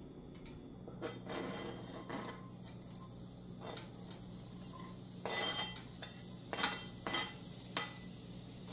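A metal utensil clinking and knocking against a pan and bowl, about five sharp strikes in the second half, as onion and sausage are added to a pan of oil and butter. A steady low hum runs underneath.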